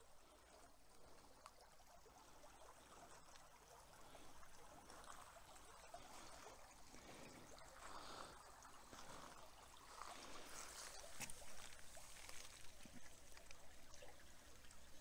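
Faint trickle of a shallow creek, with scattered small crunches and clicks of wet gravel in the second half.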